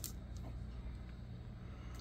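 Quiet room tone: a steady low hum with faint background hiss.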